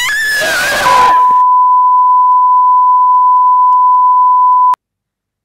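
A woman's short scream over a rush of noise, then a loud, steady, single-pitch TV line-up test tone of the kind played over colour bars, which cuts off suddenly near the end.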